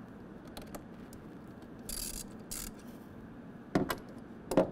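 Ratchet and 11 mm socket working the nut on a truck's battery positive terminal: two short bursts of ratchet clicking about two seconds in, then a few sharp metal clinks near the end.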